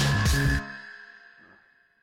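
Electronic background music with a heavy bass beat that cuts off about half a second in, leaving a high held tone that fades away.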